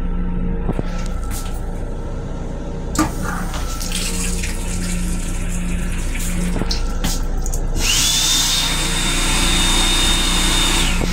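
Sink faucet in an M7 railcar restroom running water into the basin for a few seconds. About 8 s in, the hand dryer of the same dryer-faucet-soap unit starts with a brief rising whine, then blows steadily with a high whine over the rush of air, and stops near the end.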